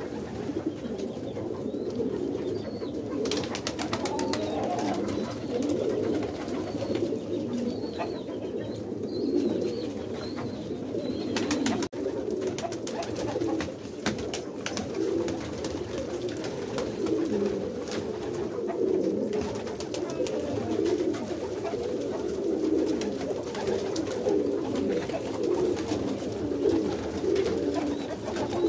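A flock of domestic pigeons cooing, many low calls overlapping into a steady, unbroken chorus.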